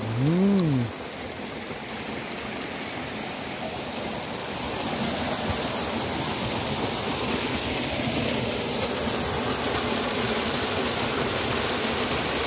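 Small rocky waterfall: water cascading over stones into a shallow pool, a steady rush that grows louder about four seconds in. A short voice is heard briefly at the very start.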